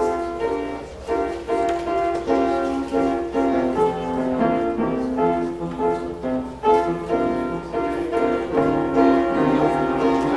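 Piano-style keyboard music playing chords under a melody, with new notes struck every half second or so.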